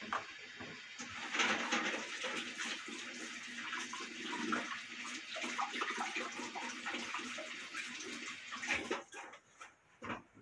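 Water running and splashing, like a tap into a sink, stopping near the end.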